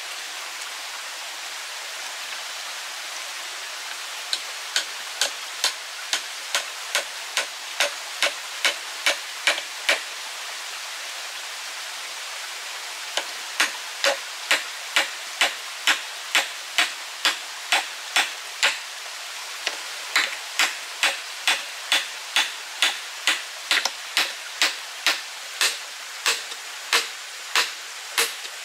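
Small hammer driving a nail through a bamboo tube into a wooden post: two runs of steady blows about two a second, the first from about four to ten seconds in, the second from about thirteen seconds on, over a steady hiss.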